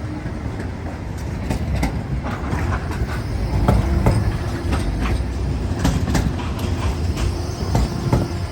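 Steady low rumble of city street traffic, with scattered clicks and knocks over it.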